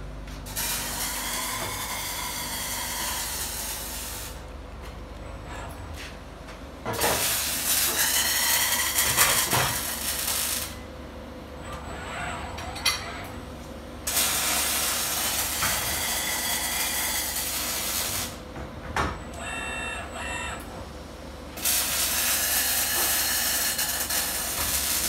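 ABB industrial robot arc welding: four separate welds, each a few seconds of steady arc hiss and crackle, with quieter pauses between them as the arm moves to the next seam.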